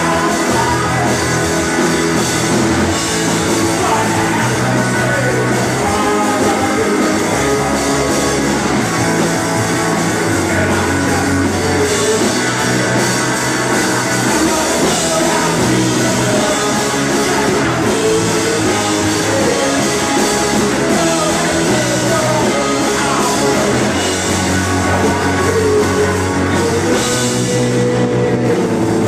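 Live rock band playing loudly: electric bass, drum kit and two electric guitars, with the bass stepping between held notes under the guitars and cymbals.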